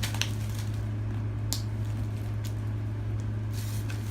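Steady low hum, with a few short rustles and clicks from a handbag being handled.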